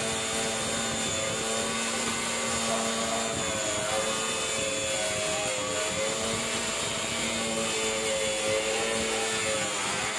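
Bosch GWS 060 small corded angle grinder running with a cutting disc through steel rebar. The steady grinding whine wavers slightly in pitch as the disc bites into the metal.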